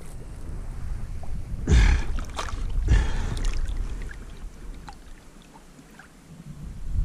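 Shallow lake water sloshing and splashing around a hand and a wels catfish as the fish is released, with two stronger splashes at about two and three seconds in, then quieter lapping as it swims away.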